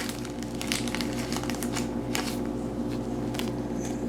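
Trading cards being handled, rustling and sliding against each other with many quick light clicks. A steady low hum runs underneath.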